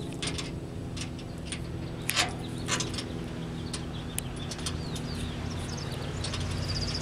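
Scattered short, sharp clicks and chirps, a few seconds apart, over a steady low hum.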